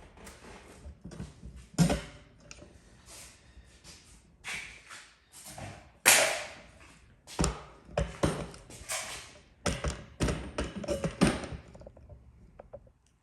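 Irregular series of knocks, taps and thuds from paintless dent repair tools working a truck's sheet-metal body panel, with a few louder hits and some quieter taps between.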